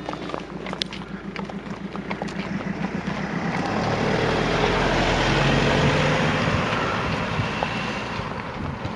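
A van drives slowly past, its engine and tyre noise swelling from about three seconds in, peaking near the middle and fading away. Horses' hooves clip-clop on the tarmac underneath.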